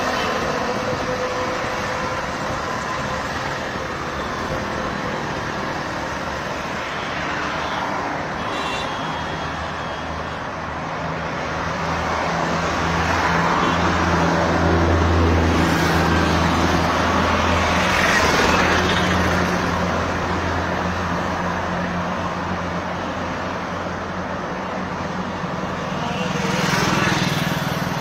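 Roadside traffic noise: a steady wash of passing vehicles, with a heavier vehicle's low engine hum swelling about twelve seconds in and fading after about twenty seconds, and another brief swell near the end.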